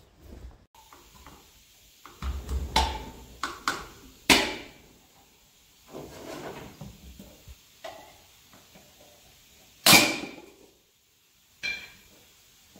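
A string of separate knocks and clatters from tools and parts being handled while setting up to work on a truck wheel. The loudest is a sharp strike about ten seconds in.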